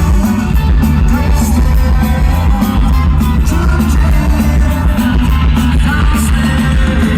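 Rock band playing live and loud: guitars and heavy bass over a steady drum beat, in an instrumental stretch of the song.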